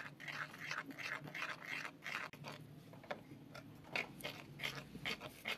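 A utensil stirring flour into a wet dough mix in an earthenware bowl: an irregular run of soft scrapes and knocks against the bowl, a few strokes a second.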